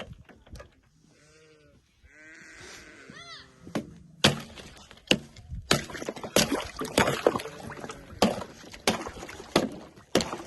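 Sheep bleating with a quavering call. From about four seconds in comes a run of sharp, irregular knocks, one or two a second.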